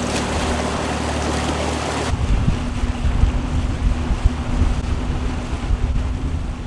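Mercury outboard motor running a fishing boat at speed, a steady engine hum over the rush of water from the wake. About two seconds in, the sound changes to heavy wind buffeting on the microphone with the motor faint beneath it.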